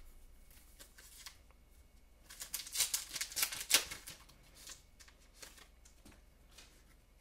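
Trading card pack wrapper crinkling and rustling as a hockey card pack is torn open. The burst of rustling is loudest between about two and four seconds in, with a few soft taps of cards being handled before and after it.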